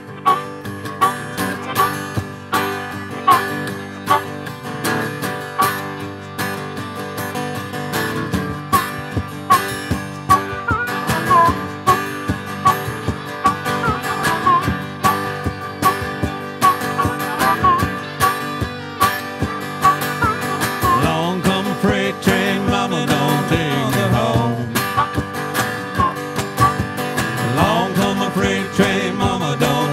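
Live country-style band playing an instrumental stretch with a steady beat: strummed acoustic guitar with harmonica playing bending lines over it.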